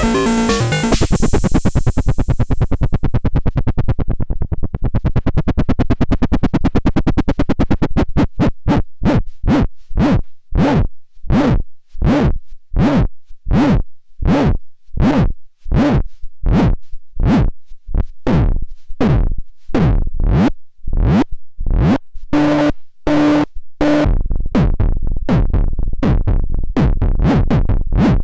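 Erica Synths Bassline analogue bass synthesizer playing a sequence. A sustained low buzzing note has its filter swept closed and open again. It breaks into short repeated notes, about two a second, each with a bright filter snap that quickly falls away, then returns to a steady low buzz near the end.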